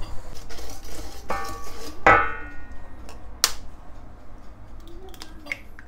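Wire whisk beating egg into a sugar and butter mixture, clinking and scraping against a stainless steel bowl. Twice the bowl is struck and rings, the second time louder, about two seconds in, followed by a sharp click and a few lighter knocks.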